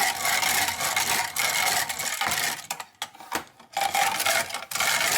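A utensil whisking rapidly against the inside of a bowl, a fast steady scraping and clinking, pausing briefly about three seconds in before starting again. It is most likely eggs being beaten for steamed egg custard.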